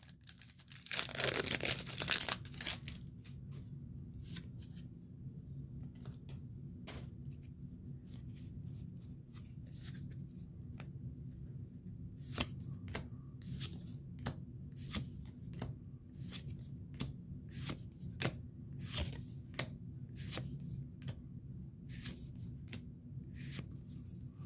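Foil wrapper of a Pokémon TCG booster pack torn open about a second in, then a long run of short, soft snaps and slides as the cards are flicked through one at a time, over a steady low hum.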